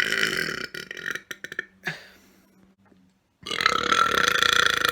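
A person burping loudly twice: a short burp that breaks up into a crackle, then after a pause a long, drawn-out burp starting about three and a half seconds in.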